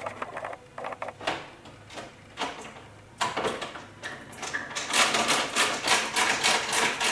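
Ratcheting screwdriver clicking as screws are driven into a cooktop's frame: a few scattered clicks at first, then a fast, steady run of clicks from about three seconds in.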